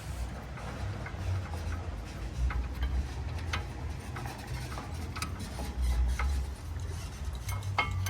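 Metal rear brake parts of a VW New Beetle clicking and tapping at irregular intervals as they are handled while the rotor and pads come off.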